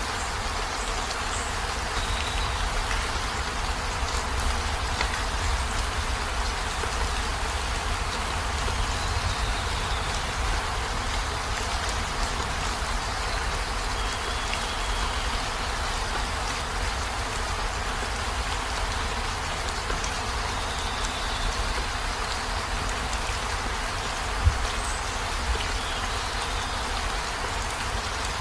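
Heavy rain falling steadily on a minivan's roof and windows, an even hiss of drops over a deep low rumble. Faint short high chirps come and go, and one sharp louder drop or tap stands out about 24 seconds in.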